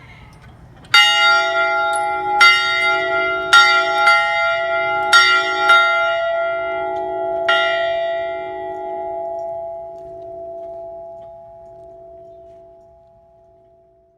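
A large school bell rung, starting about a second in with about seven clangs at uneven intervals, then left to ring on and slowly die away.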